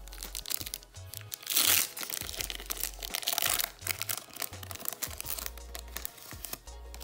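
Foil wrapper of a Pokémon booster pack crinkling and tearing open, with the loudest rip about a second and a half in, then more crinkling as the cards come out. Background music with a steady bass beat runs underneath.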